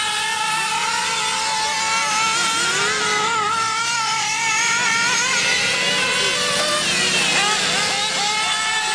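Several nitro RC late model cars' small glow engines running at high revs, overlapping whines whose pitch keeps rising and falling as the cars throttle on and off around the oval.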